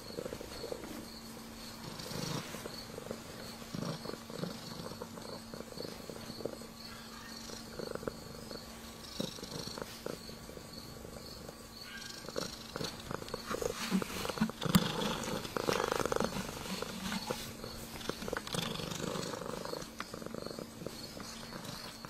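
Ragdoll cat purring while being stroked, the purr swelling and fading in pulses every second or two. It grows louder for a few seconds about two-thirds of the way through.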